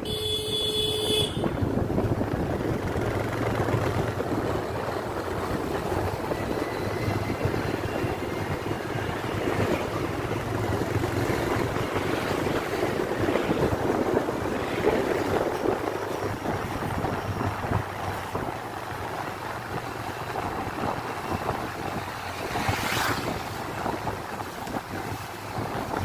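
Road noise from a moving vehicle: a steady rush of wind on the microphone over engine and tyre noise. A short vehicle horn toot sounds right at the start.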